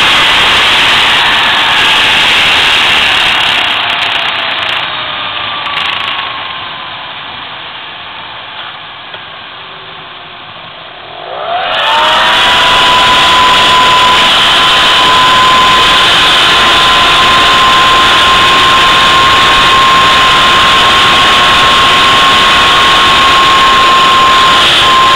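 Jet engine on a thrust test stand being throttled down, its roar fading and its whine falling in pitch. About twelve seconds in it spools back up sharply: the whine rises and settles into a steady high tone over a loud, even roar at full dry thrust.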